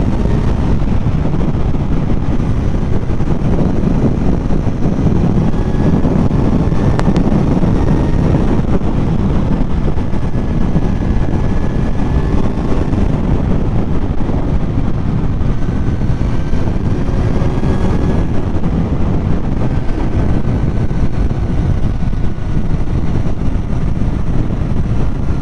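Kawasaki Z900's inline-four engine running steadily at highway cruising speed, mixed with wind rushing over the microphone.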